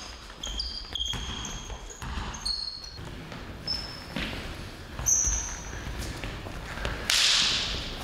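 Basketball shoes squeaking on a sports hall floor during play: several short, high squeaks in the first five seconds or so, over dull thuds of bouncing ball and feet. About seven seconds in comes a brief loud hiss, the loudest sound.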